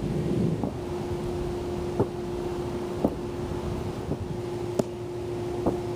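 Wind buffeting the microphone with a low rumble that eases about half a second in, leaving a steady hum and a few sharp clicks.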